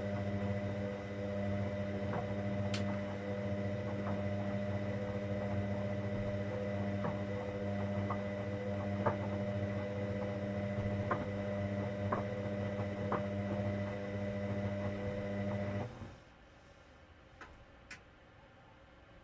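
Hoover Dynamic Next washing machine running with a steady electric hum and a few light clicks during a cotton 60 wash, until the hum cuts off abruptly about 16 seconds in.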